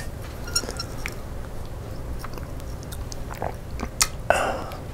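A person chewing and crunching on a snack, with scattered small clicks and a sharper click about four seconds in, over a low steady room hum.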